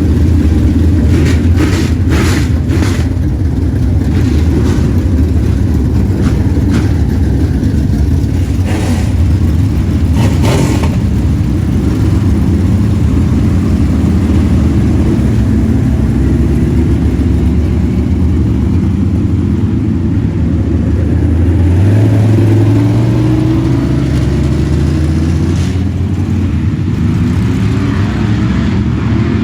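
Dirt-track race car engine running hard at racing speed, its pitch rising and falling with the throttle and climbing about 22 seconds in. A few sharp knocks are heard in the first dozen seconds.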